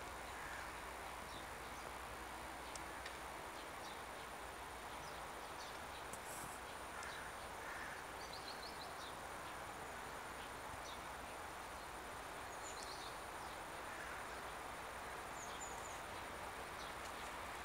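Outdoor winter ambience: a steady background hiss with faint, brief high-pitched bird chirps scattered here and there.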